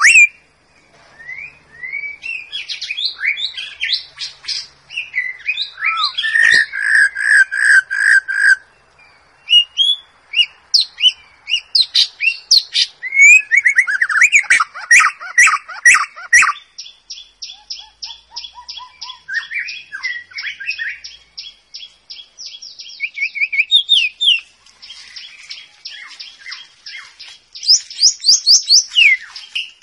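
White-rumped shama singing a varied song of clear whistled phrases and slurred notes. A fast run of repeated notes, about five or six a second, comes in the middle, with short pauses between phrases.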